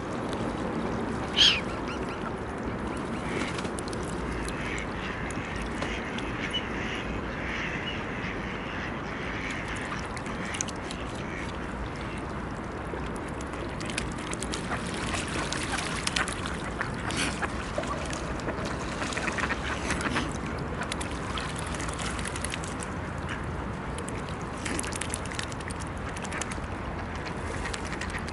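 Mute swans dabbling for oat flakes with their heads underwater: a steady wet sloshing and slurping of disturbed water, with many small splashes and clicks. One short, sharp, louder sound comes about a second and a half in.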